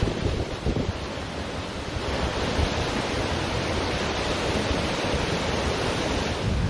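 Ocean surf washing up a beach, with wind rumbling on the microphone. The wash swells about two seconds in and then holds steady.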